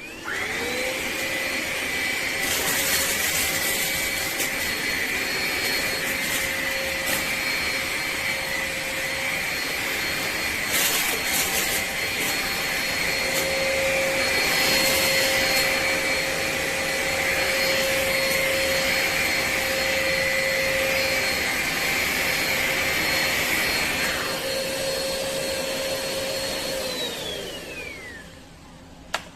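Hoover ONEPWR Evolve Pet Elite cordless stick vacuum switched on, its motor spinning up to a steady high whine with a rushing suction sound and scattered crackles. Near the end it is switched off and winds down with a falling whine, followed by a single click.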